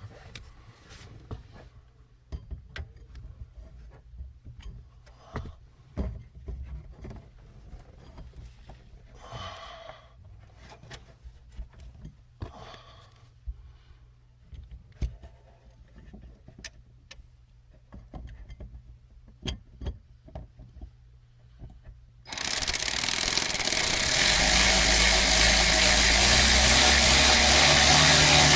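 Scattered small clicks and taps, then about 22 s in a power drill-driver starts abruptly and runs steadily, driving the screws of a lock-ring repair kit into a plastic fuel tank.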